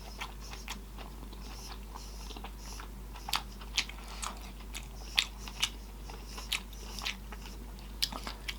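Close-miked eating of sausage in butter sauce: chewing with irregular wet lip smacks and mouth clicks, some louder than others.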